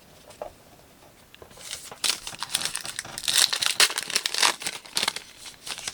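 A trading card pack's wrapper being torn open and crinkled by hand, a dense rapid crackling that starts about a second and a half in and lasts a few seconds.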